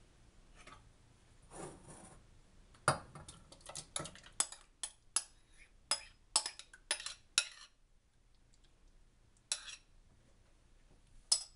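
Metal spoon clinking and scraping against a glass bowl and a stainless steel saucepan as thick kefir-marinated chicken pieces are scraped out into the pot. It goes as a quick run of sharp clinks for several seconds, then two more, one later and one near the end.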